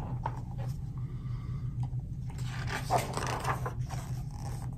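Pages of a hardcover picture book being turned and handled: scattered paper clicks and a stretch of rustling about halfway through, over a steady low hum.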